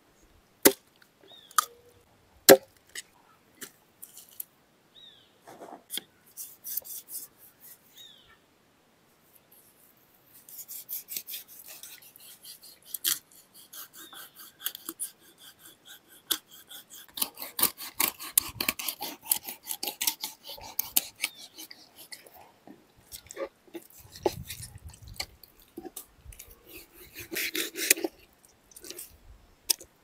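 A knife cutting and scraping through a fish's flesh and skin as it is filleted: irregular clicks and rasping scrapes, busiest after about ten seconds.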